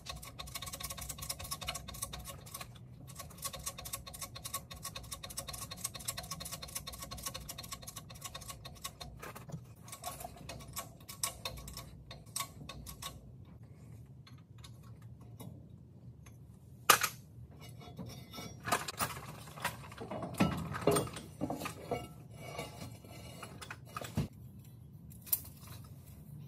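Fast, steady ticking for about the first 13 seconds while a bottle jack is worked under a truck's lift axle. Then scattered metal clanks and knocks, the loudest a single sharp clank about 17 seconds in.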